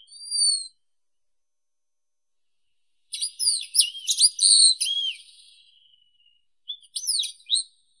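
Wallcreeper calling: a thin, clear whistled note right at the start, then after a pause a quick run of high chirping and twittering notes about three seconds in, and a shorter burst of chirps near the end.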